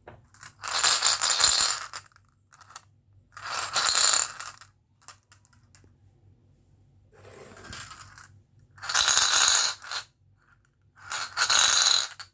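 Marbles clattering and rattling down a toy marble run in five separate bursts of about a second each, the middle one fainter.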